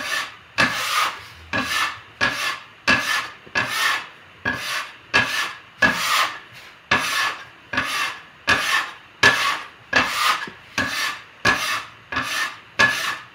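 Metal bench scraper scraping across a wooden pasta board, chopping through a crumbly mix of egg and flour. The strokes are even, about three every two seconds. This is the stage where the egg soaks up the last of the flour before the dough is gathered by hand.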